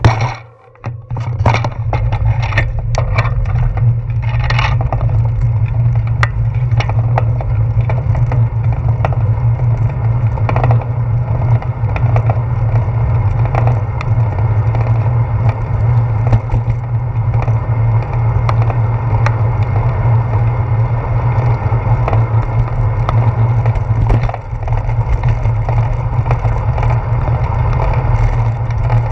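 Steady low wind rumble and road vibration picked up by a handlebar-mounted action camera on a bicycle rolling along a wet street, with tyre noise on the wet pavement. A run of sharp rattling clicks and knocks comes in the first few seconds.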